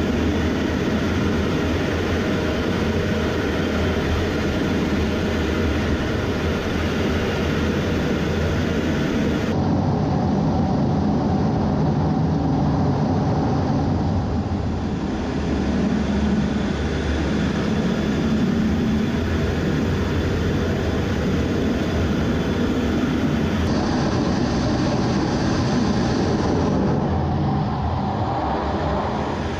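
F/A-18 jet's twin turbofan engines running loud and steady on a carrier deck, heard from inside the cockpit. The sound changes abruptly twice, about ten and twenty-four seconds in.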